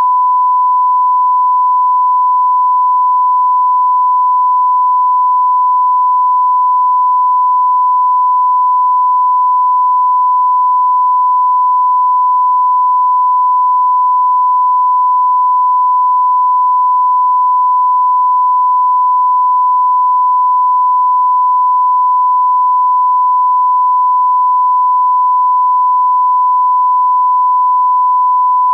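A single pure test tone held at one steady pitch and level, without a break: the reference beep that plays under a 'no signal' test screen.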